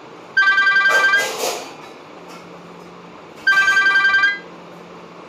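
Nokia 105 mobile phone ringtone: an electronic imitation of an old telephone bell, a rapidly pulsing trill that rings twice, each ring just under a second long and the two about three seconds apart.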